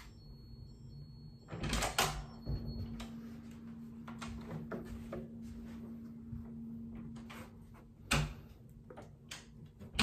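Wooden room door being opened, its lever handle and latch clicking with a couple of sharp knocks about two seconds in. Light taps and steps follow as someone walks in, with another knock a little after eight seconds and a loud knock right at the end as the handle is worked to shut the door.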